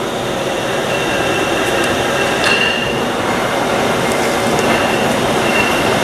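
Large Monarch engine lathe running under power, its 30 hp main motor and geared headstock turning the 28-inch four-jaw chuck: a steady mechanical din with a thin high whine and light metallic clinking, growing slightly louder.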